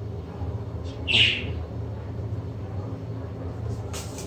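A single short, high bird chirp about a second in, over a steady low hum. A few light clicks near the end come from a spoon against a ceramic bowl as the yogurt and mayonnaise are stirred.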